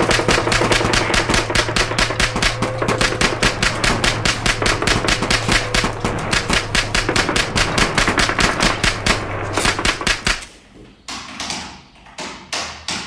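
Automatic gunfire: one rapid, evenly paced burst lasting about ten seconds, then a few separate shots near the end.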